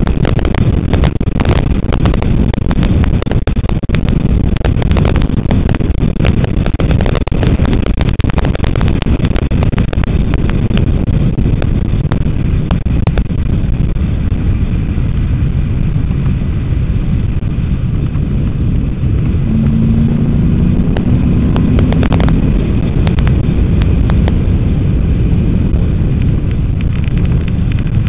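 Ford Mustang GT lapping a race track, heard from a front-mounted camera: a loud, steady rumble of engine, tyres and wind with frequent crackles. About twenty seconds in, a brief tone rises slightly.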